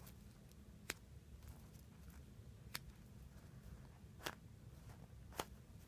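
Near silence with a low hum and four faint, sharp clicks spread across a few seconds: handling noise while a soft foam squishy toy is squeezed.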